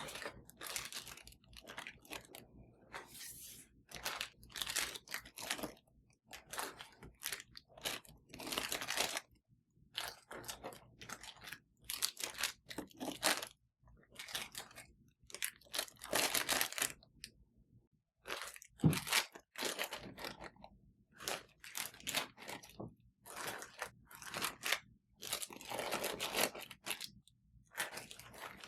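A person biting and chewing crunchy food: a run of separate crunches at an uneven pace, with one louder knock a little past the middle.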